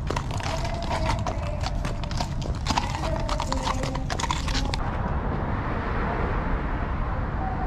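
Horses' hooves clip-clopping on pavement as several horses walk past, a quick irregular run of sharp clicks. About five seconds in, the hoofbeats stop and a steady hiss of street noise takes over.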